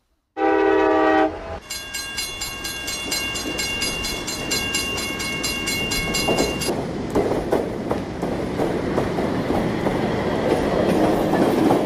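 Fairground kiddie ride train setting off. A short horn blast about half a second in is followed by about five seconds of rapid, even ringing, the ride's start signal. Then comes a rumble with clacking as the cars roll over the small steel track.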